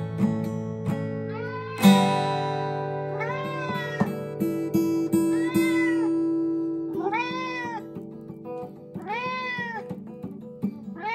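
Acoustic guitar: a final chord strummed about two seconds in and left ringing out, with a few single notes picked after it, while a cat meows over it about six times, roughly every two seconds, each meow rising and falling in pitch.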